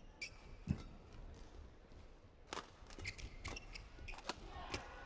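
Badminton singles rally: sharp cracks of rackets hitting the shuttlecock, shoe squeaks on the court mat, and footfalls, with one heavy thud a little under a second in.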